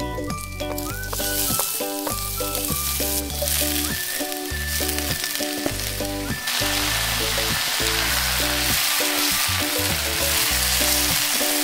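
Vegetables sizzling in hot oil in a frying pan as tomato wedges and then bok choy are tipped in; the sizzle grows louder and fuller about six seconds in, when the bok choy goes in. Background music with a steady run of notes plays underneath.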